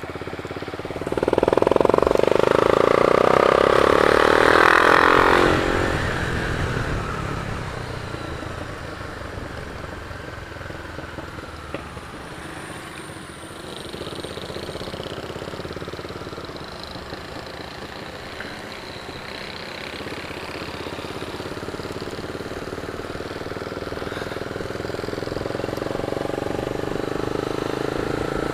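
Motorcycle on the move: steady engine and road noise, with a much louder vehicle passing close by, loudest for about four seconds starting a second in, then fading away.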